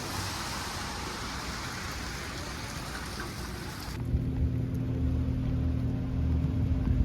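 Steady hiss of falling rain. About four seconds in it cuts off abruptly to a louder low, steady rumble with a droning hum, like a running engine.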